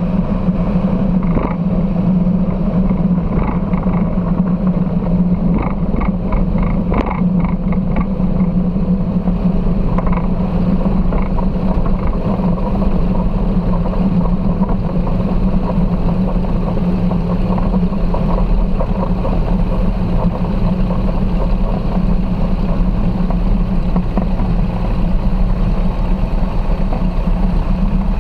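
Foxbat light aircraft's engine and propeller running steadily at low power while the plane taxis along a grass and dirt airstrip, a steady low hum. A run of quick rattling ticks sounds between about two and eight seconds in.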